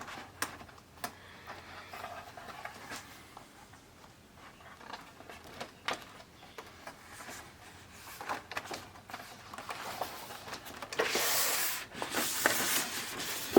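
Hands handling the plastic internal parts of an LCD TV during reassembly: scattered light clicks and taps, then a louder stretch of rubbing and scraping of plastic near the end.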